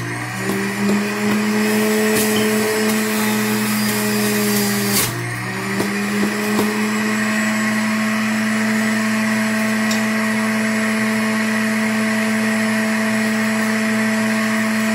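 Power XL self-cleaning centrifugal juicer's motor running with a steady hum, its pitch dipping briefly near the start as produce is pressed down the chute and again about five seconds in, then holding steady.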